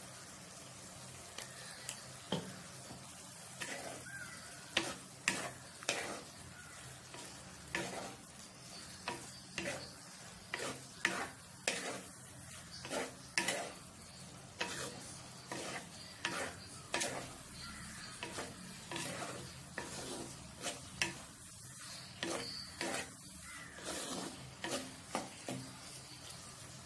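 A spatula scraping and knocking against a clay pot while stir-frying mushrooms, onions and green chillies, with repeated irregular strokes about one or two a second. Under the strokes the food sizzles faintly in the hot oil.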